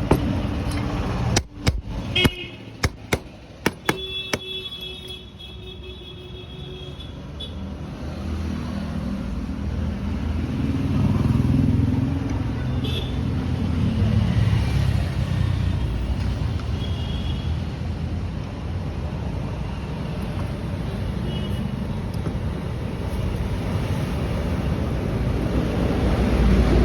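A motor vehicle running, a low rumble that rises and falls, after several sharp clicks in the first few seconds.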